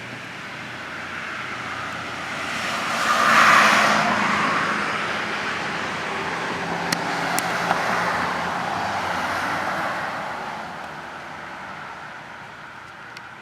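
A road vehicle passes by: a rushing tyre-and-engine noise swells to its loudest about three and a half seconds in, holds lower for several seconds, then fades slowly. A few faint clicks come around the middle.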